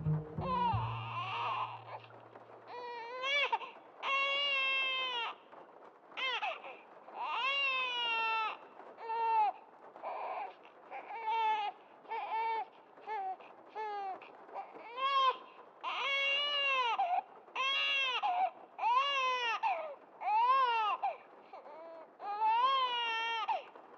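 Newborn baby crying in repeated short wails, each rising and falling in pitch, with brief breaths between them. A low hum sounds under the first few seconds.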